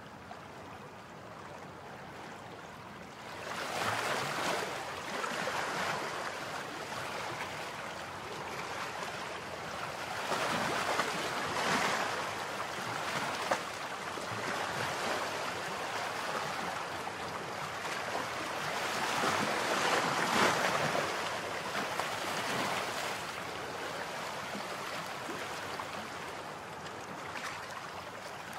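Outdoor wind noise rushing in gusts, swelling and fading every few seconds.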